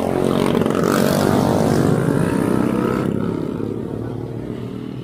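A motorcycle engine passing close by, growing loudest one to two seconds in and then fading away.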